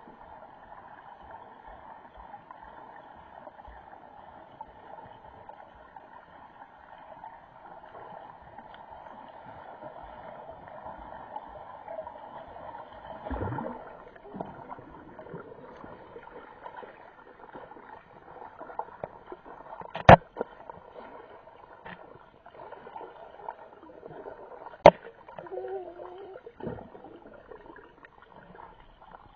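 Muffled underwater water noise, a steady hiss heard through a camera held below the surface. There are two sharp knocks, about 20 and 25 seconds in, and a brief wavering tone soon after the second.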